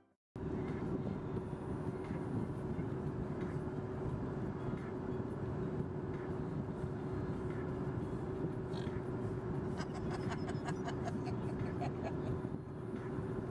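Steady road and engine noise inside a moving car's cabin, with a constant low hum.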